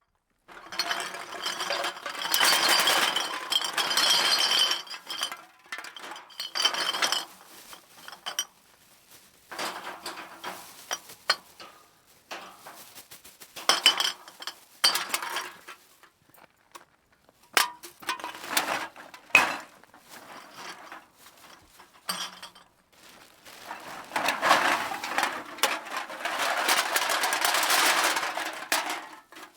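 A bag of empty metal cans dumped out several times over, each dump a clattering rush of tin cans knocking and clinking together, with a few single can hits between the dumps. The longest dumps come first and last.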